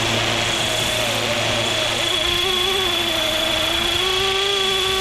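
A 450-class RC scale helicopter hovering: a steady high whine from its electric motor and drive, with lower rotor tones that waver slightly in pitch as it holds position.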